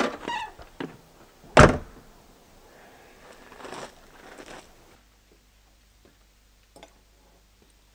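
A single loud thump about a second and a half in, followed by fainter noises that die away.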